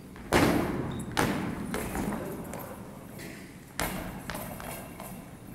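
Several hard, echoing thuds on the gym floor, the loudest about a third of a second in and another a little before 4 s: a goalball ball with bells inside being thrown and bouncing, and players dropping to the floor to block it.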